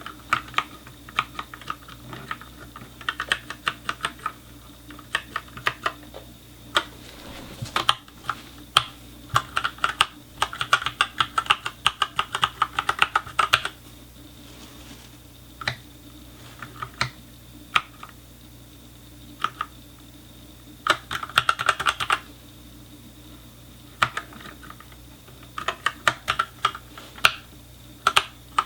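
Typing on an Ajazz K870T mechanical keyboard with Huano brown tactile switches: quick runs of key clacks broken by short pauses.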